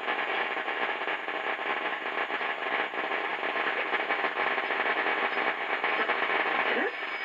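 Static hiss from a 1940 Philco 40-180 tube radio's speaker as it is tuned between stations, with a brief rising whistle near the end as the dial nears a signal.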